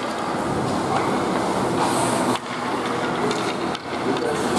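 Ice skates gliding and scraping on the rink over the steady background noise of an ice arena.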